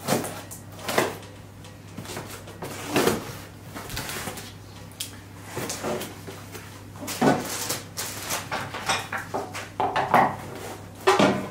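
Large cardboard TV box being opened and handled: its flaps lifted and folded back, with irregular scrapes, rustles and knocks of cardboard.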